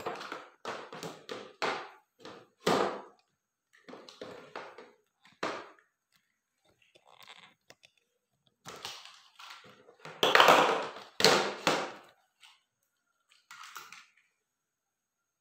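Hard plastic toy blocks and a plastic toy bus with a hinged lid being handled: irregular clacks and taps, loudest in a cluster about ten seconds in.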